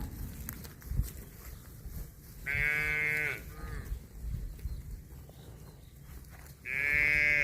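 Calf mooing twice: two short, high-pitched moos about four seconds apart, the second one running on past the end.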